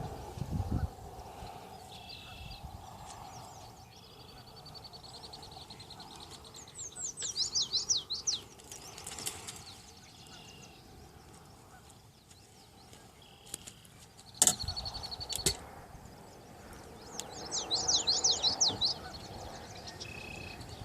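Songbirds singing: repeated high trills and runs of quick down-slurred notes, twice loudly, with a sharp click about two-thirds of the way through.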